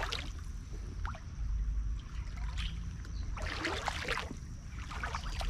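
Shallow creek water trickling, with a cluster of splashes about three and a half seconds in.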